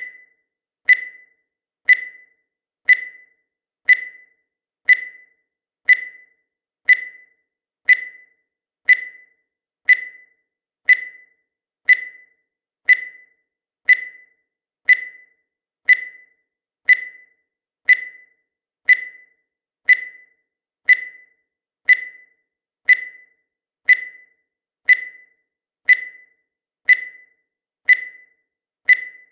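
Countdown timer sound effect: a short high-pitched beep once every second, each fading away quickly, in an even, unbroken rhythm.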